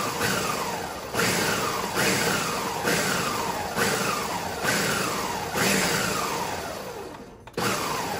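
Ninja countertop blender pulsed repeatedly, about once a second, blending hot cooked cranberries into sauce: each pulse starts sharply, then the motor's pitch falls as it spins down when the button is let go. After a longer spin-down, a last pulse comes near the end.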